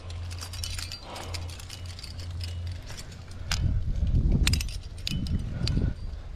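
Climbing rack of metal carabiners and cams jangling and clinking as a quickdraw is unclipped from the harness and clipped in, with many small sharp metal clicks. Louder low, muffled rumbling comes in the second half.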